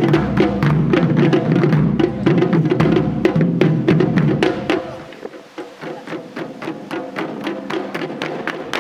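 Ensemble of Japanese taiko drums playing a fast, dense rhythm. About five seconds in, the deep drums drop out and it turns quieter, leaving only light, clicking strikes, until the deep drums come back in at the very end.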